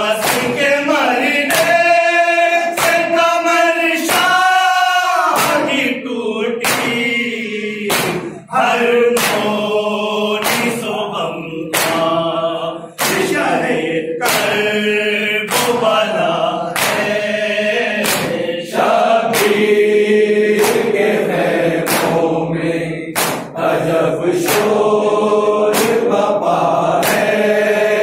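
A group of men chanting a noha, a Shia lament, in unison, with loud hand strikes on their chests (matam) keeping a steady beat of about one a second.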